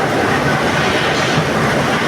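Heavy factory machinery running with a loud, steady clattering din.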